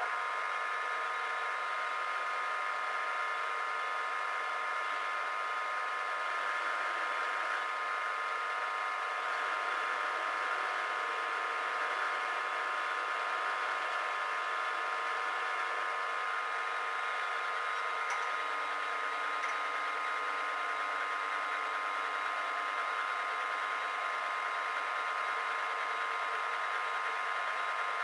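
Warco Major gear-head mill-drill switched on right at the start and running steadily, a drill bit in its spindle cutting into an aluminium plate. Its whine holds a steady pitch throughout.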